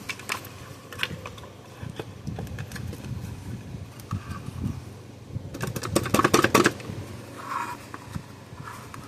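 Clicks and light knocks of small parts and tools being handled on a workbench, with a quick run of rapid clicks about six seconds in.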